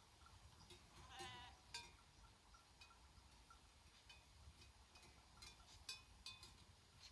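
A grazing flock of sheep, faint: bells clinking irregularly, with one short wavering bleat about a second in.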